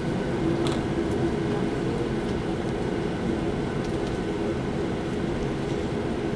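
Steady cabin noise of a Boeing 737-800 taxiing: the rumble and hum of its CFM56 turbofan engines at low taxi power, with a few light clicks from the cabin fittings.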